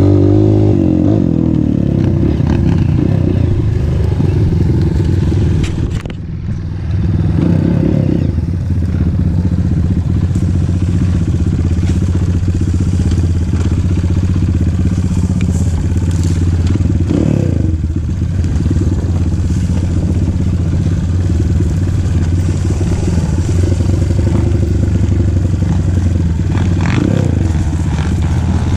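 Motorcycle engine running steadily during a ride, with brief revs near the start, around seven seconds and around seventeen seconds, and a short easing of the throttle around six seconds.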